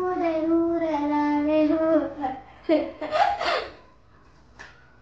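A young boy singing one long drawn-out note that steps down in pitch, then breaking off into bursts of laughter about three seconds in; a single faint click follows near the end.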